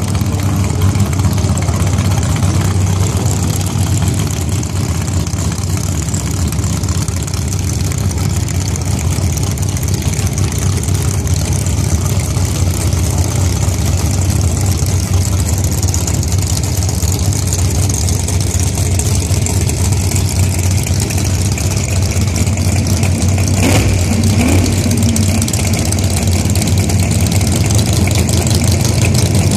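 Rail dragster engines idling at the starting line, a steady low running sound with no launch or hard revving. A short, sharper sound comes about three quarters of the way through.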